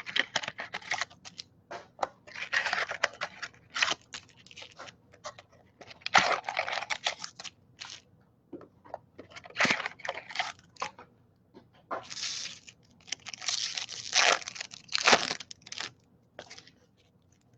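Plastic wrapping being torn and crinkled as a sealed box of baseball cards is opened, in irregular rustling bursts with small clicks and knocks.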